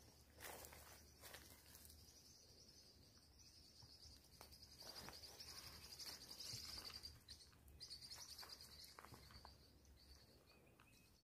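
Faint, steady high-pitched chorus of birds or insects in dry scrub forest, with a few soft steps on leaf litter.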